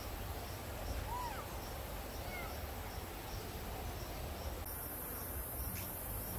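Forest ambience: an insect chirping in regular high pulses, about three a second, over a low rumble. A few short squeaky chirps, rising and falling, come between about one and two and a half seconds in.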